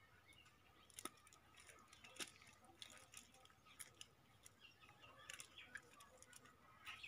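Near silence, broken by a few faint, scattered clicks and rustles from a cast net being gathered up by hand.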